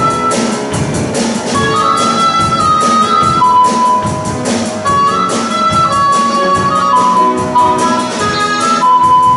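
A live instrumental ensemble playing an upbeat tune. A melody of held notes rides over full accompaniment with a steady percussive beat.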